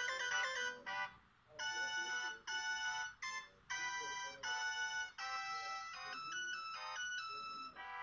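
LG U8330 flip phone playing a synthesized ringtone melody: a run of short quick notes, then longer held notes, with the tune stopping near the end.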